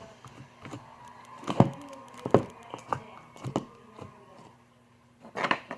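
Slime being handled: a few sharp clicks and pops, roughly one every half second to second, over a faint steady hum.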